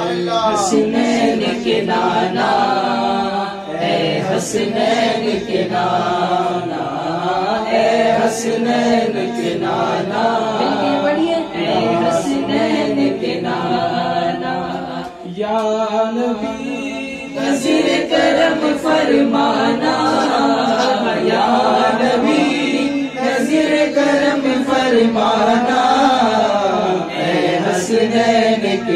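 Unaccompanied male voices singing a devotional Urdu naat in a chanting style. A lead singer is on a microphone and other voices join in.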